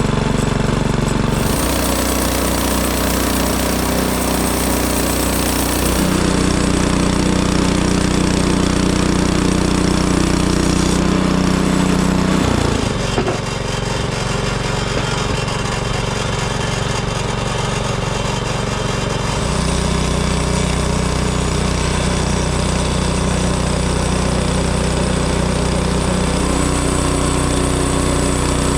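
Frontier OS18 portable bandsaw mill running steadily, its engine note shifting abruptly several times.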